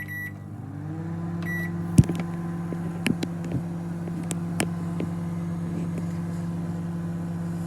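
A microwave oven heating a bag of popcorn. It starts with a beep, then runs with a steady low hum. A second short beep comes about a second and a half in, and a few sharp clicks follow.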